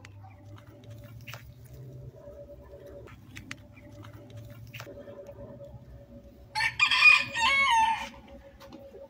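A rooster crowing once, a call of about a second and a half, two-thirds of the way through, over a faint steady hum.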